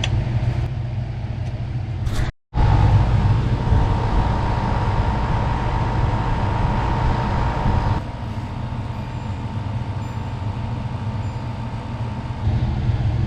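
Portable air conditioner running steadily, a continuous fan and compressor hum. It drops out briefly about two seconds in, and a steady higher whine sits on top of the hum for several seconds after that.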